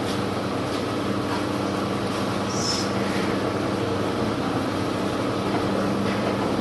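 Steady hum of running workshop machinery, with a few faint metal clicks and a short high squeak about two and a half seconds in, as the cutter block is tightened onto the spindle moulder's spindle.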